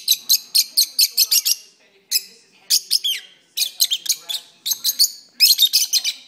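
Rosy-faced (peach-faced) lovebirds singing: rapid runs of sharp, high chirps, several a second, broken by short pauses.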